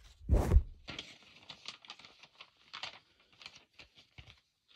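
A loud thump right at the start, as of a knock against the recording phone, then faint irregular clicks and rustles of hands handling paper and packaging close by.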